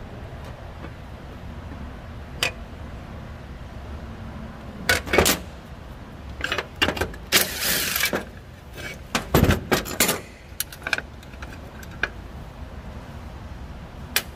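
Clicks, knocks and a short metallic rattle from handling tools or parts, bunched between about five and ten seconds in, over a low steady rumble.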